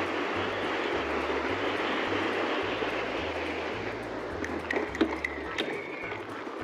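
Rushing wind and tyre noise from an e-bike riding along a track, picked up by the ride camera's microphone. The rushing eases after about four seconds, and a few sharp clicks come in near the end.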